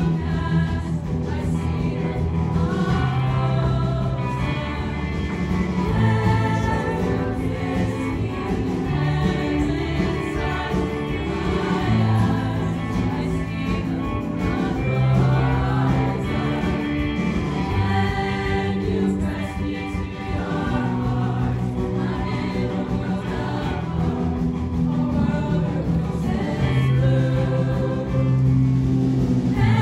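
An all-female high school show choir singing a song to a musical accompaniment, with sustained low bass notes that change every second or two beneath the voices.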